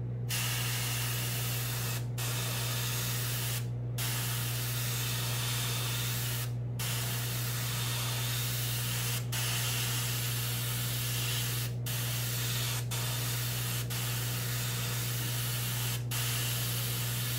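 Airbrush spraying paint in a steady hiss, the trigger let off briefly about eight times, over a steady low hum.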